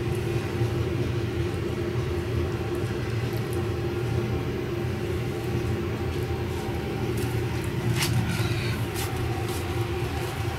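A steady low machine hum with a constant pitched drone, and a few light clicks about seven to nine seconds in.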